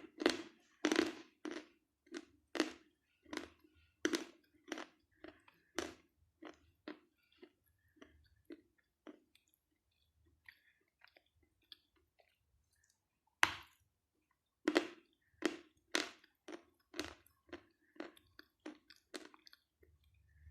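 Close-up crunchy chewing of dry Khrapovsky chalk, about two crisp crunches a second. The chewing stops for a few seconds about halfway and starts again with a sharp, louder crunch.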